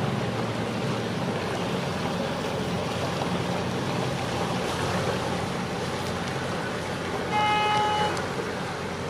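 A motor cruiser's engine running at low speed, with water and wind noise. About seven seconds in comes a short horn toot, under a second long.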